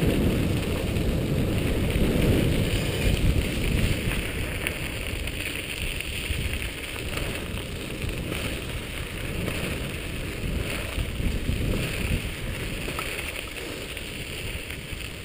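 Wind rushing over a helmet-mounted microphone, mixed with a dog scooter's tyres rolling over a gravel trail at speed behind a pair of huskies. The rumble is heaviest in the first few seconds and eases off toward the end.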